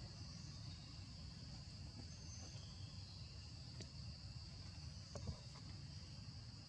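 Steady, high-pitched drone of insects in forest, over a low rumble, with a couple of faint clicks, the sharpest a little past five seconds in.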